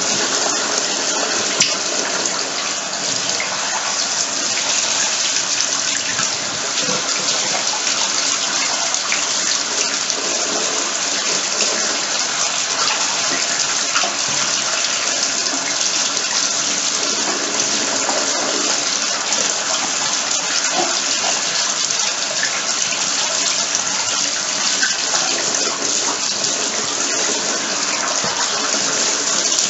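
Bathtub spout running steadily into the tub, its stream splashing as a sneaker is held and rinsed under it.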